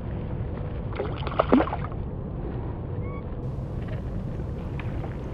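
A small speckled trout splashing at the surface beside a kayak as it is reeled in: a short burst of splashing about a second in, over a steady low rumble of wind and water.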